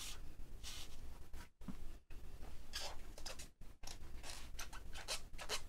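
A thin plastic stencil and card being handled on a cutting mat: the stencil lifted off the card and set down, with short rustles and scrapes that come more quickly near the end.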